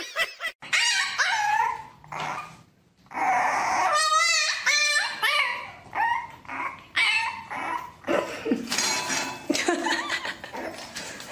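Dogs vocalizing: a husky, then a young puppy in a wire crate, giving a string of high, gliding whines and short yelps that rise and fall in pitch, some with a quaver.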